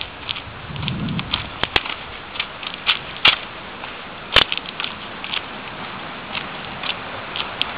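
Footsteps on dry grass and dead plant litter, with scattered sharp clicks, the loudest a little after three and four seconds in, over a steady hiss.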